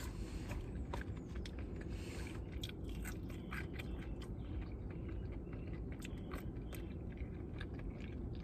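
Close-miked chewing and crunching of fried food, with many small sharp mouth clicks and the scrape and rustle of a cardboard food box being handled.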